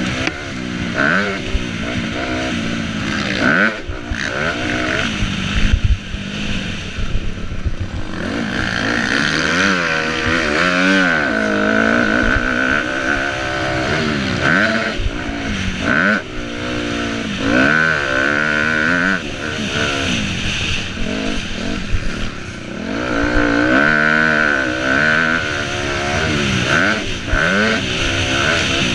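Dirt bike engine heard from an on-bike camera, revving up and falling back again and again as the rider opens and closes the throttle through a motocross lap, with short knocks from the bike over the ground.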